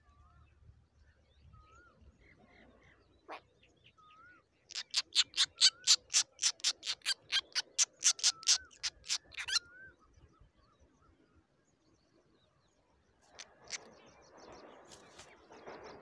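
Nestlings begging at a rufous treepie's nest: a loud, rapid run of harsh calls, about four a second, lasting some five seconds. A soft wavering whistle recurs now and then, and near the end there is a quieter rustling.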